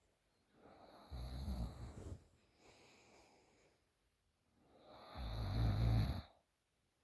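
A woman snoring with her mouth open: two loud snores, one about a second in and one near the end, each building from a softer breath, with a quieter breath out between them.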